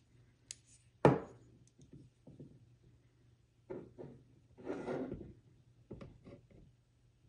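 Hands handling a brass caliper rule against a pine board: one sharp knock about a second in, then scattered light taps and a short rustle.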